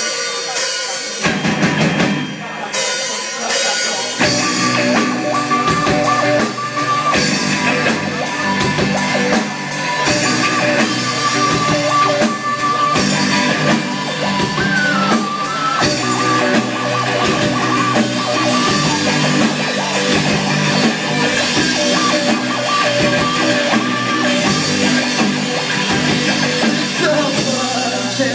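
Live rock band playing, with electric guitars, keyboard and a drum kit. The drums settle into a steady beat about four seconds in.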